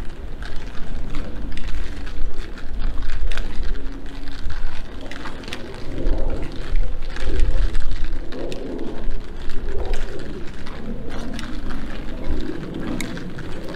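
Outdoor city street ambience: an uneven low rumble with faint scattered ticks.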